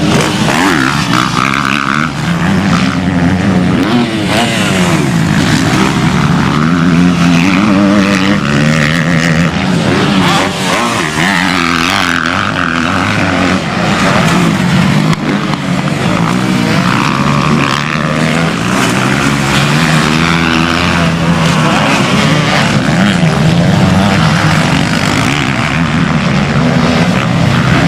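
Several motocross bikes racing, their engines revving hard, the pitch rising and falling continuously as they accelerate and ease off, with more than one engine heard at once.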